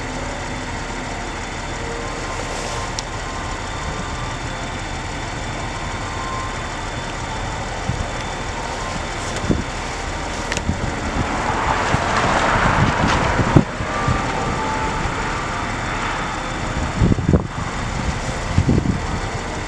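Outdoor city ambience: a steady rumble of road traffic, with a vehicle passing more loudly about twelve seconds in. Gusts of wind buffet the microphone near the end.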